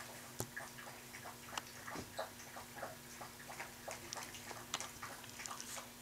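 Faint, irregular clicking of Yorkie Poo puppies' claws on a tile floor as they walk about, a few clicks a second, over a faint steady hum.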